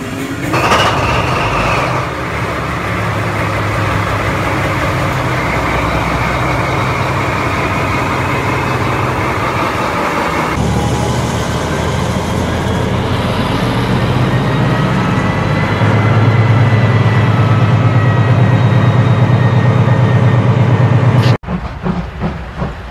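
Recorded diesel locomotive sound played back through speakers as a model-railway sound effect. The engine starts about half a second in and runs steadily, then steps up twice as the locomotive pulls away and runs harder. It cuts off suddenly about a second and a half before the end.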